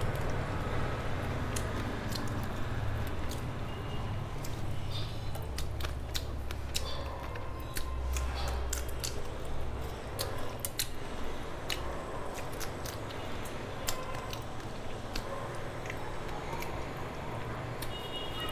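Close-up eating sounds: a person chewing and sucking on prawns eaten by hand, with many sharp mouth clicks, most of them from about four seconds in. A steady low rumble runs underneath.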